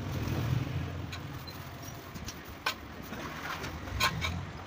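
Metal engine parts of a Honda CG125 being handled during reassembly: a sharp click about two and a half seconds in and another, louder one about four seconds in, over a low hum.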